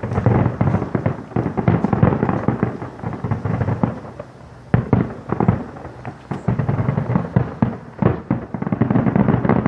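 Fireworks display finale: a rapid barrage of bangs and crackling shells going off close together, easing briefly about four seconds in before picking up again.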